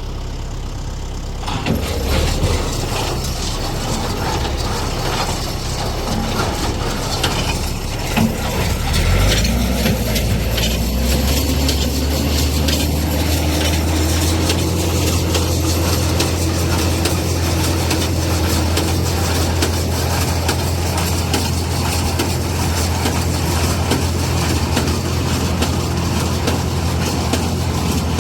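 A New Holland 67 Hayliner square baler running off the tractor's PTO, clattering and ratcheting as its mechanism cycles. This is a test run on a new shear bolt after the baler was unclogged. The LS tractor's engine runs underneath; about nine seconds in it speeds up, then holds steady at the higher speed.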